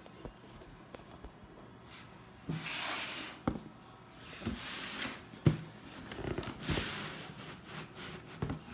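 Sneaker packaging being handled: three bursts of rustling with a few sharp knocks, the loudest about five and a half seconds in.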